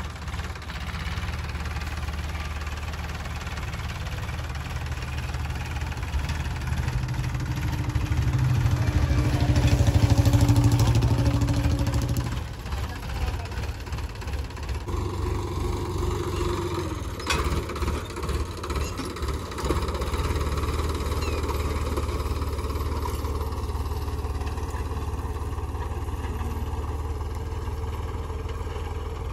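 Sonalika tractor's diesel engine running steadily while pulling a seed drill. It grows louder to a peak about ten seconds in, drops sharply about two seconds later, runs unevenly for several seconds, then settles back to a steady run.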